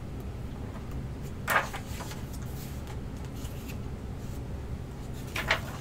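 Pages of a hardcover comic-book omnibus turned by hand: a quick paper swish about a second and a half in and another near the end, over a steady low room hum.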